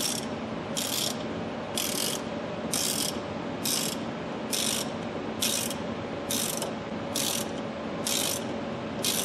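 Hand ratchet wrench clicking in short bursts, about one a second, as it is swung back and forth to tighten the steering-wheel retaining bolt.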